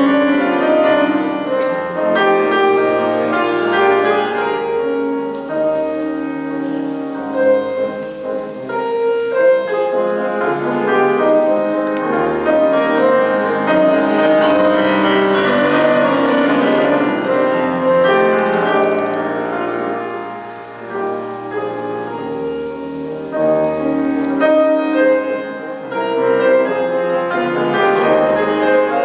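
Concert grand piano played solo: a fast, many-noted classical passage, dipping softer for a moment about two-thirds of the way through before building again.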